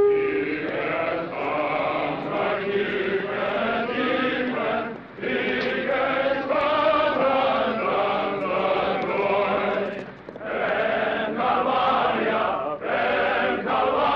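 A large chorus of Welsh coal miners' men's voices singing a song together in long phrases, with short breaks for breath twice. A steady whistle tone dies away just as the singing begins.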